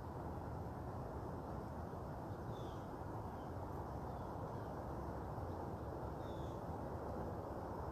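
Outdoor dawn ambience: a steady low background rumble, with a bird giving short, high chirps a few seconds apart, about three times.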